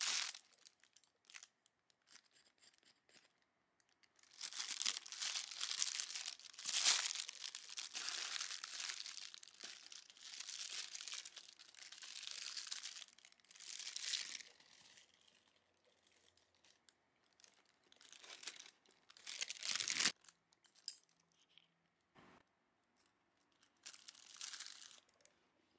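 Thin plastic bag crinkling and rustling in bursts as a pan-fried pork bun is handled and pulled apart with chopsticks inside it, with one sharp click about three-quarters of the way through.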